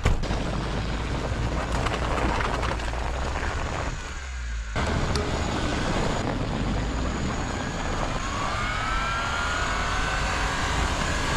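Small Kei truck engine running as the truck drives off over snow, a steady rumble with road noise. It dips briefly about four seconds in, and a faint rising whine comes in near the end as it picks up speed.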